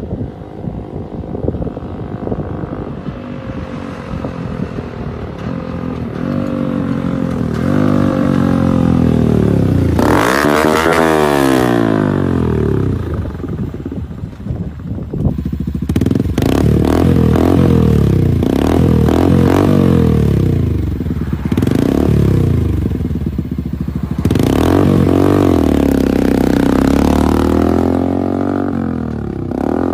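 Homemade 4x4 off-road go-kart's engine revving as it drives. It comes closer and passes about ten seconds in, with the pitch rising and then falling, and afterwards climbs and drops in pitch again and again under acceleration.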